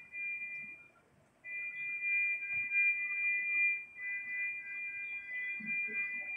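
Steady high electronic alarm tone from NICU bedside equipment: a continuous beep with two lower tones beneath it. It cuts out briefly about a second in, then resumes.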